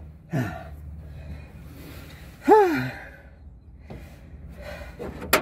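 A man sighing and groaning with effort while he catches his breath: a falling sigh just after the start and a drawn-out rising-then-falling groan about halfway. A sharp click near the end.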